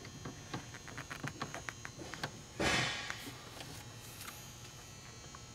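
Small irregular clicks and taps of a hand tool and metal and plastic parts being worked in a car's engine bay, then a short, louder rustling scrape about two and a half seconds in.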